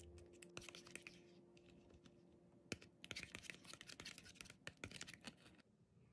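Faint clicking and scraping of a plastic spoon stirring and scooping thick blueberry yogurt against the sides of a plastic cup, in two clusters of quick ticks.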